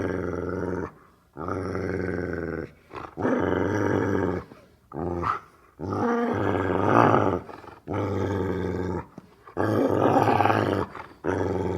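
Italian wolf growling: a run of low growls, each about a second long, with short pauses between.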